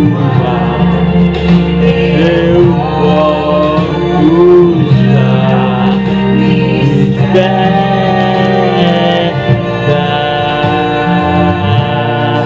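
A song sung with instrumental accompaniment: the sung melody glides over steady held chords and a bass line.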